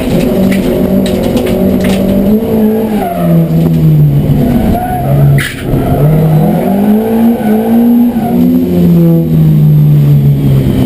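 Volvo 240 rallycross car's engine heard from inside the cabin under racing load, its revs rising and falling several times through shifts and lifts. A sharp knock comes about five and a half seconds in, with a brief dip in the engine sound.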